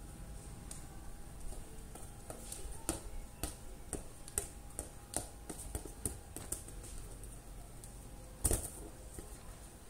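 A toddler playing with a plastic ball on a concrete yard: scattered light taps and clicks, with one louder thump about eight and a half seconds in.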